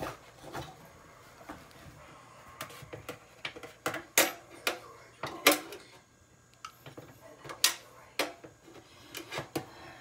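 Irregular sharp metal clicks and taps, with a few louder ones in the middle, from hands fitting a bullet piercing valve onto a refrigerator compressor's copper tube and tightening its screws with an Allen wrench.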